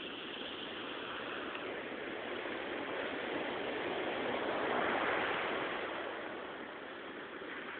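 Sea waves washing onto the shore in a continuous rush of surf, swelling to a peak about five seconds in and then easing back.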